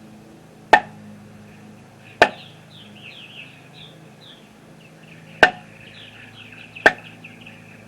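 Eafengrow EF55 pocket knife blade being struck hard into wood: four sharp whacks, the first two about a second and a half apart and the last two about a second and a half apart, with a longer gap between. Birds chirp faintly behind them.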